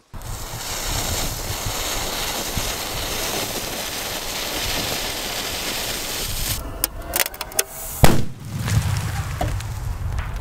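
A steady hiss, then a few sharp cracks and a single very loud bang about eight seconds in: a Viper 12 firecracker exploding inside a steel military ammunition can, blowing the can apart.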